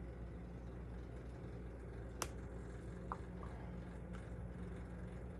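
A single-wire soap cutter is pressed down through a loaf of soap over a steady low hum, with one sharp click about two seconds in as the wire comes through, then a couple of faint taps.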